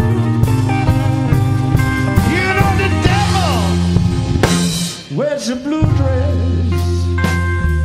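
Blues-rock band recording: drum kit, bass and electric guitar playing, with a lead line bending in pitch. The bass drops out briefly about five seconds in.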